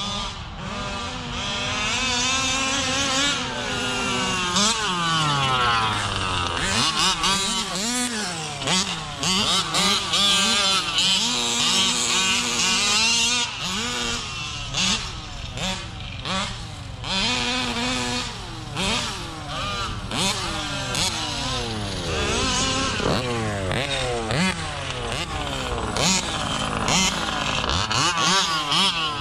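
Two large-scale RC trucks' Taylor big-bore two-stroke gas engines being driven hard, their revs rising and falling over and over with the two engine notes overlapping.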